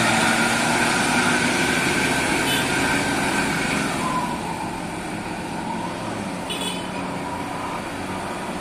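Bus engine running under load and fading as the bus drives away, its engine set up in a racing tune. Motorcycles pass close by, one with a falling engine note about four seconds in.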